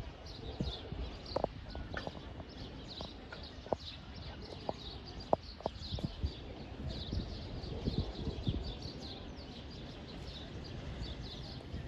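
Small birds chirping, many short high chirps all through, with a scattering of sharp clicks and knocks in the first half.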